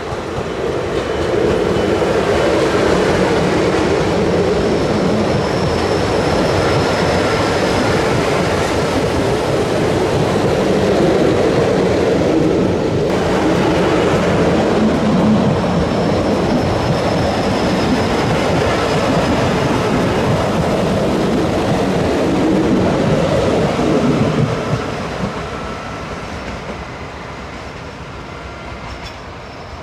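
A train passing on the line, a loud steady rumble of wheels on rail for a little over twenty seconds that fades away near the end as it moves off.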